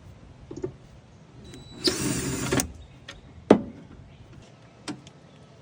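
Cordless drill spinning briefly for under a second as it backs out a tail light mounting screw, followed by a couple of sharp clicks and knocks.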